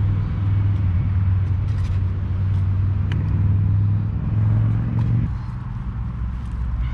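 Motor traffic on the roundabout: a low, steady engine hum that drops away sharply about five seconds in, with a few faint clicks over it.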